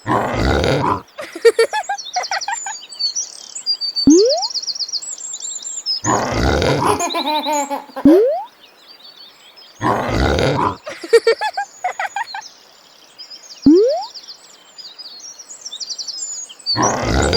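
Birds chirping throughout, broken by loud short bursts about every four seconds and three quick rising whistles between them.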